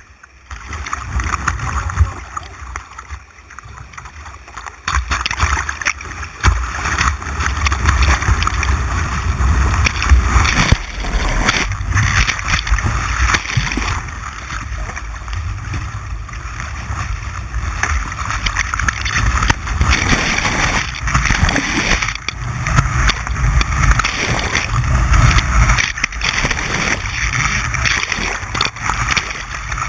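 Rushing white water and splashing around a kayak, heard from a camera mounted on the boat. A heavy low rumble of water buffeting the microphone comes in about five seconds in and carries on.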